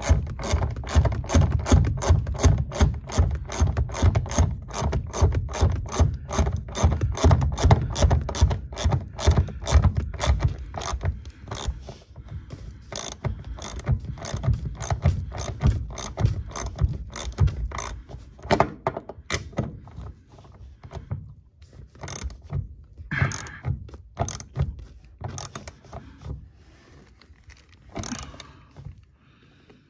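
Hand ratchet wrench clicking as the seat bolts are run in and tightened: dense, rapid clicking for the first twelve seconds or so, then sparser clicks with a few separate louder knocks later on.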